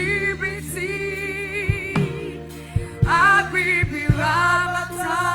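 Live gospel worship music: sustained, wavering sung notes over held keyboard and bass chords, with drum hits.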